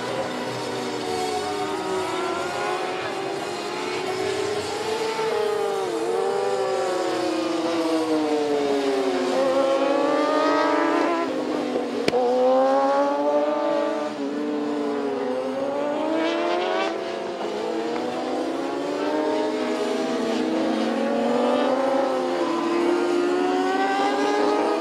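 Kawasaki inline-four sport bikes on track, several engines overlapping, each pitch climbing and dropping as the riders accelerate, shift and brake.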